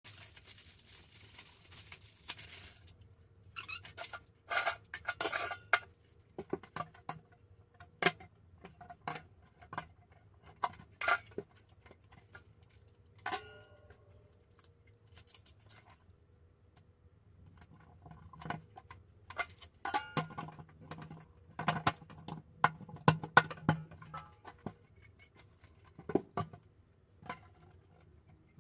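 Hanging adhesive metal wire shower caddies on a tiled wall: plastic backing film rustling as it is peeled off, and the wire shelves clicking and clinking against the tile and their mounts. The clicks come scattered, with a busier run about three quarters through.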